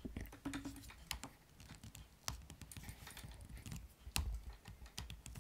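Scattered light clicks and taps of a handheld phone camera being handled and repositioned, with a soft thud about four seconds in.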